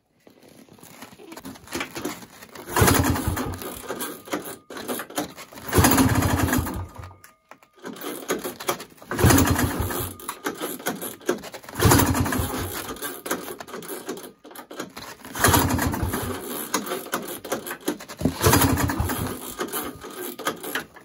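1970 Ski-Doo Olympic's cold two-stroke engine being pull-started with its carburettor primed: six pulls of the recoil starter about three seconds apart, each spinning the engine over briefly with a fast chatter that dies away without the engine catching.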